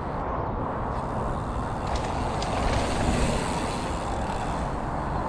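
Steady outdoor rumble of wind on the microphone, swelling into a louder rushing hiss about three seconds in, with a few faint clicks just before.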